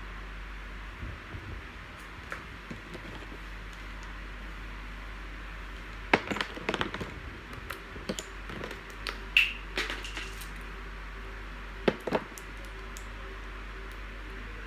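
Scattered small clicks, taps and knocks of makeup palettes and tools being handled, over a steady background hiss. The clicks come in two clusters, from about six to ten seconds in and again around twelve seconds.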